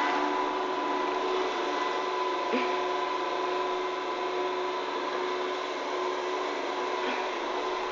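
Robot vacuum cleaner running: a steady whirring hiss with a thin, even motor whine, and a light knock about two and a half seconds in.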